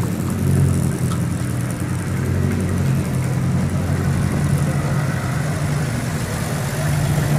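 Vintage car engine idling steadily as the car rolls past at walking pace.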